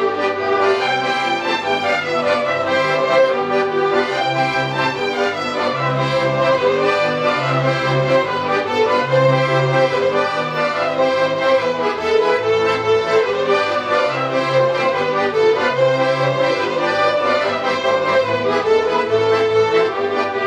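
Folk string band playing an instrumental tune: several violins carry the melody over accordion and a steadily repeating double bass line.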